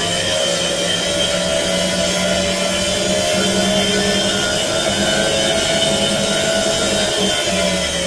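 Electrolux EWF10751 front-loading washing machine running loudly with a steady mechanical drone and whine. It measures about 80 dBA at the door before repair, a sign of its noise fault.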